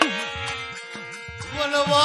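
Gujarati dakla devotional folk music: a hand drum beating with pitch-bending strokes under steady held notes. A louder wavering melody line comes in about one and a half seconds in.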